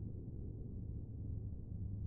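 Low, quiet rumbling drone of the soundtrack music as it winds down.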